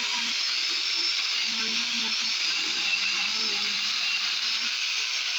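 Battery-powered mini chainsaw running steadily with a high, hissing whine, its lower motor tone wavering as it works.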